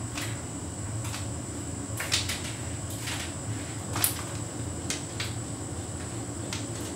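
Hotpoint heat pump tumble dryer running a synthetics cycle: a steady low hum from the drum and compressor, with irregular light knocks and clicks as the laundry tumbles. The loudest knock comes about four seconds in.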